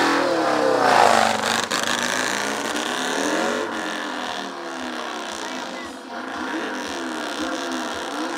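Stunt motorcycle's engine revving up and down again and again, its pitch rising and falling several times, loudest about a second in as the bike rides past.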